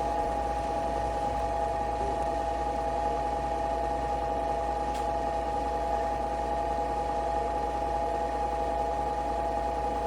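A small appliance motor from the Nespresso Vertuo Pop+ Deluxe set runs with a steady whirring whine and a low hum, unchanged in pitch throughout.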